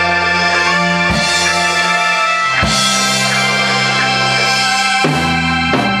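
Live rock band playing: electric guitar and bass guitar hold long sustained notes while the drum kit punctuates them with a few heavy hits and cymbal crashes.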